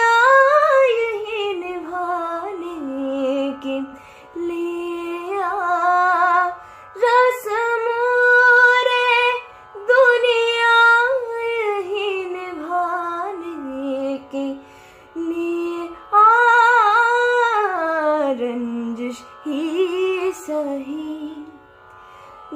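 A woman sings a ghazal in Indian classical style, in long held phrases that glide up and down with ornamented turns, with short breaks between phrases.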